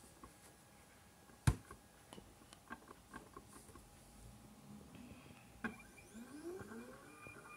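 Anycubic Photon S resin printer's Z-axis lead screw moving the build-plate carriage, giving a faint, steady high-pitched squeal that starts about five seconds in, with a brief rising whine as it gets going. A sharp click about a second and a half in, with a few lighter clicks after it.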